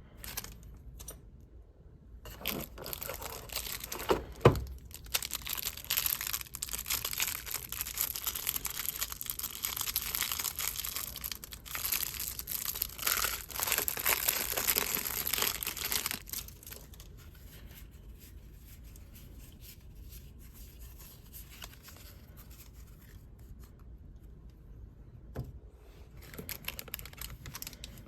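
Plastic packaging on Pokémon trading card products being torn open and crinkled: dense crackling for about fourteen seconds, with a sharp knock a few seconds in, then quieter handling.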